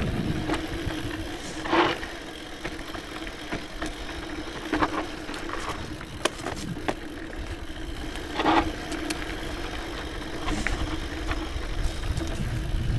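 Scott Genius full-suspension mountain bike rolling fast down a dirt singletrack: steady tyre and drivetrain rattle with a faint hum, broken by sharp knocks over bumps, the loudest about two, five and eight and a half seconds in.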